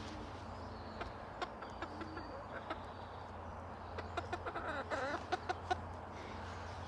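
Chickens clucking now and then, with a cluster of short clucks about four to five seconds in, over a steady low hum and scattered small clicks.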